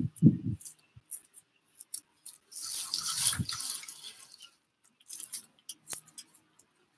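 A camera being handled and set in place: a couple of dull bumps at the start, then scattered sharp clicks and taps with a longer rustle of rubbing on the microphone about three seconds in.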